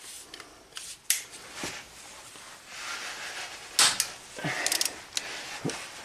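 Scattered sharp metal clicks and knocks of a socket and long ratchet being fitted to and worked on cylinder head bolts of a Toyota 1MZ-FE V6, with short scrapes and rustling between them. The loudest crack comes a little under four seconds in.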